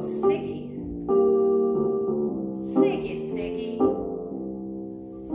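Casio digital piano playing sustained chords, changing about once a second.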